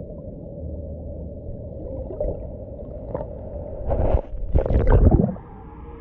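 Stream water heard through a camera held underwater: a muffled, steady low rush. About four seconds in come two loud sloshing, gurgling surges as the camera is pulled up through the surface, and the flow then sounds clearer in open air.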